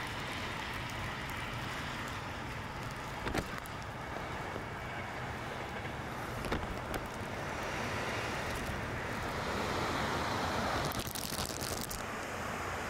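Wind and rain at night: a steady rushing noise with a few sharp ticks, swelling louder for a few seconds past the middle.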